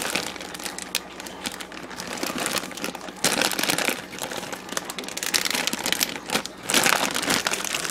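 Plastic freezer bag crinkling and crackling on and off as the air is pressed out of it to seal it for freezing.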